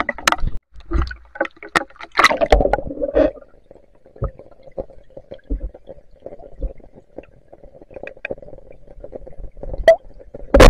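Heavy rain spattering on a shallow river in sharp ticks, then a splash as the camera goes under. After that the sound is muffled underwater: a steady hum with scattered ticks.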